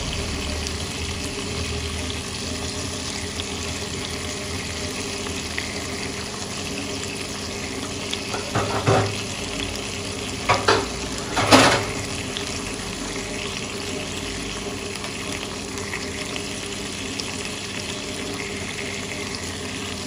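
Seasoned fish fillets sizzling steadily in butter in a nonstick frying pan. A few short, louder sounds come around the middle as a fourth fillet goes into the pan.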